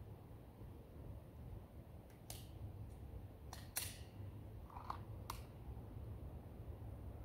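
Glock 19X 9mm pistol firing about half a dozen shots at an uneven pace between about two and five and a half seconds in, the loudest near four seconds; the sharp cracks come through faintly.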